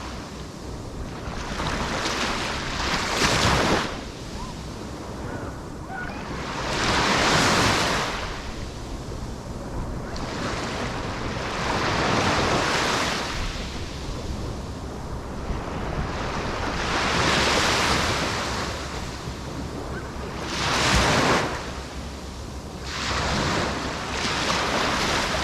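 Sea waves breaking on the shore, each wash swelling and falling away every few seconds, with some wind on the microphone.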